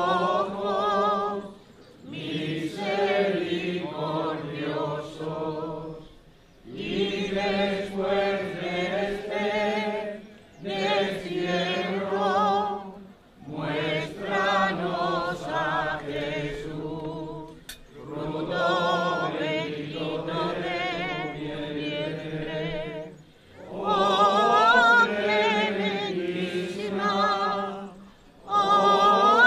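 Voices singing a hymn without instruments, in sung phrases a few seconds long with short breathing pauses between them.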